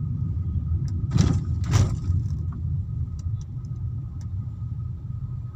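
Low, steady rumble of idling and creeping traffic in a jam, heard from inside a car's cabin. Two brief sharp noises come a little over a second in, about half a second apart.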